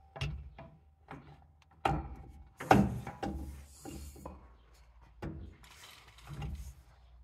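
Steel driveshaft and U-joint clanking and knocking against the rear differential's pinion yoke as it is worked into place by hand, with short scrapes of metal on metal. There are about a dozen knocks, the loudest about three seconds in.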